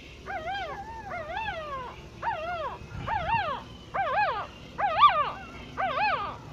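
Newborn puppies, hours old, squealing: a string of about seven short high cries, roughly one a second, each rising then falling in pitch.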